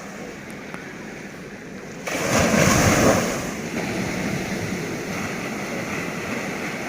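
Sea surf rushing on the shore. It grows suddenly louder about two seconds in as a wave breaks, then settles into a steady wash.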